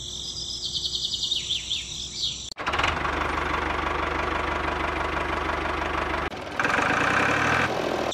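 Crickets with a few bird chirps, then about two and a half seconds in a tractor-style engine sound cuts in abruptly, running with a rapid, steady beat; near the end its pitch rises briefly.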